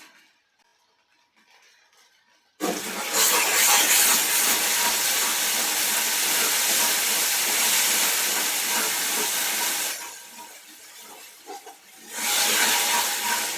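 A loud, steady hiss that starts suddenly a few seconds in, dies down to a faint hiss for about two seconds near the end, then comes back loud.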